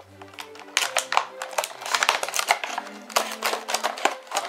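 Toy packaging being handled and opened: repeated crinkling, crackling and clicks of plastic and cardboard, over background music with steady low notes.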